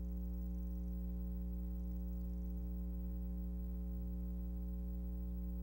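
Steady electrical mains hum: a low, unchanging drone with a few fainter overtones above it, and nothing else.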